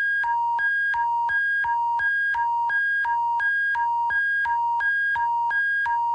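Synthesized emergency alert attention signal: two electronic tones, a lower and a higher one, alternating about three times a second in a steady hi-lo pattern over a constant low hum.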